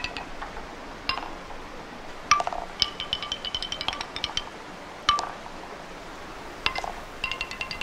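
A wooden ball rolling down a wooden xylophone track, striking bar after bar. Each strike rings a short pitched wooden note, so the notes come in quick tinkling runs that form a melody. The runs are separated by brief pauses and each begins with a sharper knock, four times.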